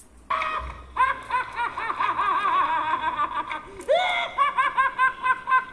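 A man's cackling laugh in quick repeated syllables, starting about a third of a second in and running on in rapid bursts, with a brief break just before the four-second mark.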